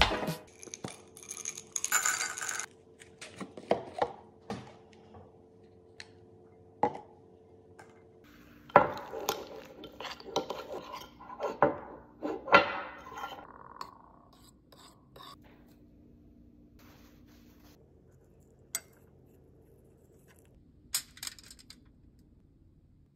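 Metal spoon clinking and scraping against a ceramic bowl while stirring melted chocolate, mixed with knocks of jars and lids on a countertop. The clatter is busiest in the middle, then thins to a few light taps near the end.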